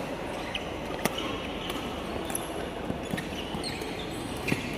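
Badminton rally: racket strings smacking the shuttlecock, a sharp crack about a second in and another near the end, with lighter hits between, over the steady din of a sports hall.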